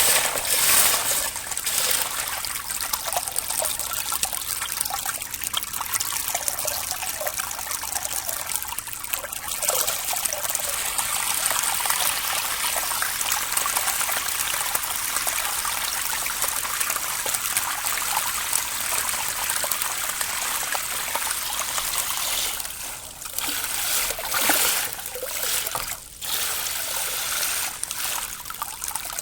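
Water trickling and rippling steadily, with a few brief lulls near the end.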